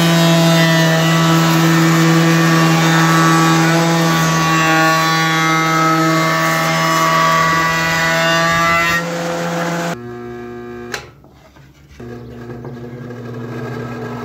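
Spindle moulder running at a steady pitch while a board is fed past its cutter, shaping the wood edge. About ten seconds in it stops abruptly, there is a single click, and a quieter steady machine hum starts: a table saw running.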